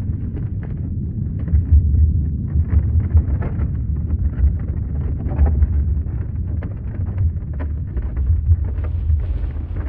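Earthquake rumble: a deep, continuous rumbling with constant crackling and rattling over it.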